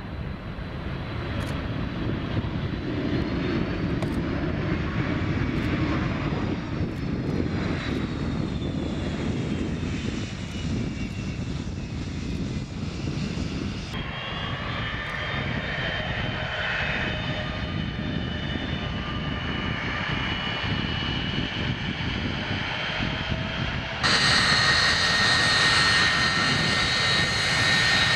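Boeing 757-200's two jet engines running at low power as the airliner taxis, a steady rumble with a high whine on top. The sound changes abruptly twice, and the last few seconds are louder, with a strong high whine.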